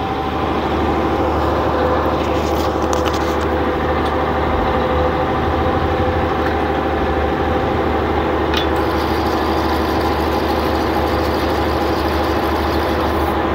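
Fishing boat's inboard engine running steadily, heard on board as the boat holds and manoeuvres into position.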